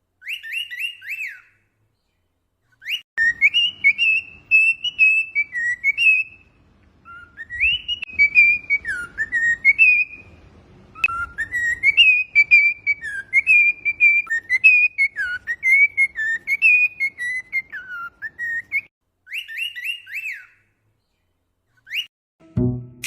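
Cockatiel whistling a warbling song in a run of phrases, with short pauses between them.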